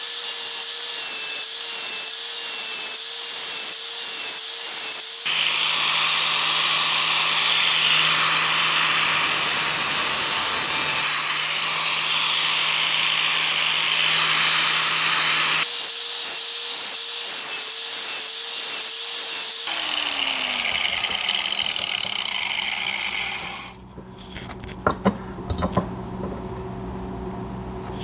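Handheld power grinder sharpening a steel lawn mower blade: the motor whines at free speed, then grinds loudly against the blade's cutting edge for about ten seconds. It runs free again, winds down with a falling pitch about two-thirds of the way through, and a few light knocks follow near the end.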